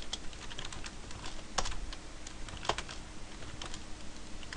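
Computer keyboard typing: a run of irregular keystroke clicks, with two louder strokes about a second and a half in and just under three seconds in.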